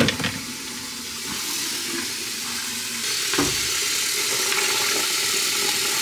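Kitchen tap running steadily into the plastic tub of a portable washing machine, filling it with warm water. A single short knock about three and a half seconds in.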